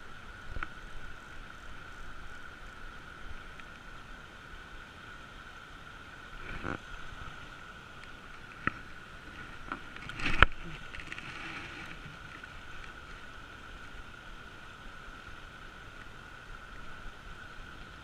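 Spincast fishing reel and rod being handled through a cast and retrieve: scattered sharp clicks, and a loud knock about ten seconds in as the cast is made, followed by a brief rush of noise. A steady high tone sits underneath throughout.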